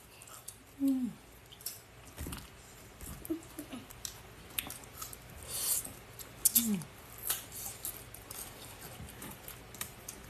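Close-up mukbang eating sounds: scattered clicks and crunches of chewing and chopsticks, with two short falling squeaky tones, one about a second in and one past the middle.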